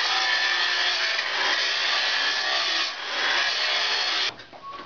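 Angle grinder grinding steel, running steadily with a short dip about three seconds in, then stopping shortly before the end, followed by a few light knocks.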